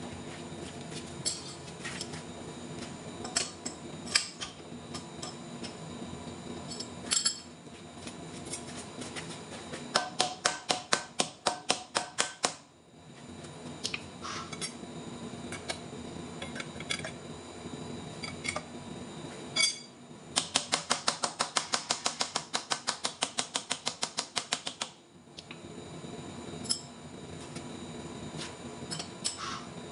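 Hand ratchet wrench clicking in two quick runs of about six or seven clicks a second, a few seconds each, with scattered single metal clicks and knocks from tool handling at the lathe over a steady machine hum.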